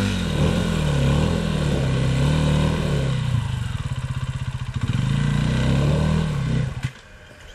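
Enduro dirt bike engine climbing a rough trail, revs rising and falling as the throttle is worked, then cutting off suddenly near the end.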